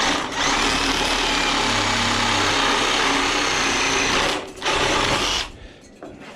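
A power tool cutting through the condenser's metal, running steadily for about four seconds, stopping for a moment, running again for about a second, then stopping.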